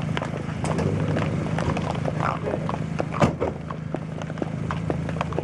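Many high heels clicking unevenly on asphalt as a line of women walks past, over a steady low hum, with one louder knock about three seconds in.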